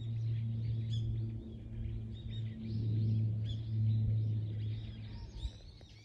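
Small birds chirping in many short, high calls over a low steady hum.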